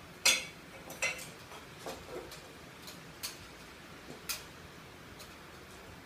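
Sharp metallic clicks and clinks at irregular intervals: metal hardware and tools knocking against the ceiling fan's housing as it is worked on by hand. The loudest comes just after the start, followed by about six fainter ones.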